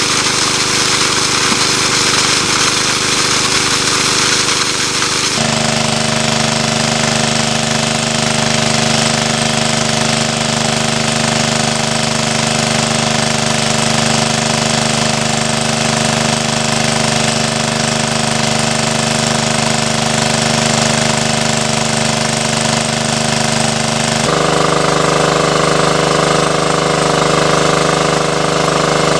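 Motor-driven water pump running steadily while it pumps water out of a pond, with the water jetting from its outlet. Its tone shifts abruptly about five seconds in and again near the end.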